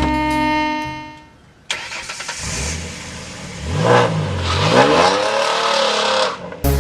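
A car engine sound effect: a sudden start about a second and a half in, then the engine revving up and back down. A held musical chord fades out at the start.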